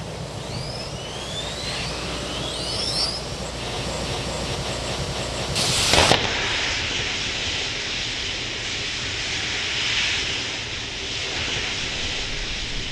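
Space Shuttle main engine ignition heard close at the launch pad: a sudden loud blast about six seconds in, followed by a steady rushing roar. Before the blast there is a lower hiss with a few faint whistling glides.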